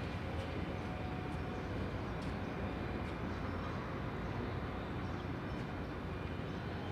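Suzuki A100's small two-stroke single-cylinder engine idling steadily.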